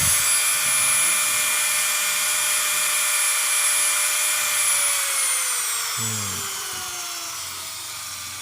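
Kova mini grinder's small electric motor running fast with a steady high whine, blowing a strong stream of air; about five seconds in it slows, its pitch falling steadily.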